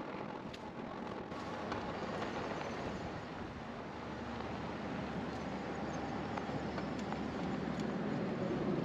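Tyres of a KBO Compact folding electric bike rolling over a sandy gravel path, a steady noise with a few light clicks, mixed with wind noise on the microphone.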